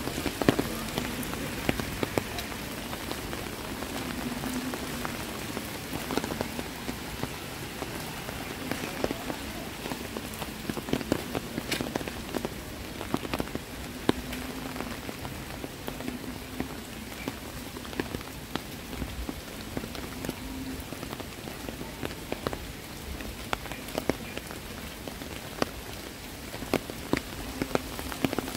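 Heavy rain falling steadily, with many sharp individual drop hits close by over the hiss.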